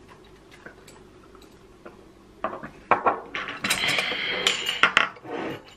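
Tableware at a meal: chopsticks, spoons and ceramic bowls clinking and scraping in a short run of clatter that starts about halfway in.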